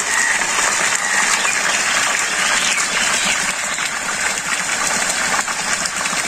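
Stream of water from a pump-fed hose pouring into a water-filled concrete basin, a steady splashing gush.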